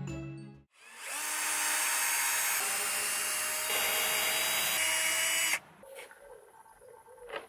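Power drill boring into a wooden crosspiece: the motor spins up about a second in, runs steadily under load with a rise in pitch partway through, and stops abruptly after about four and a half seconds. A sharp click follows near the end.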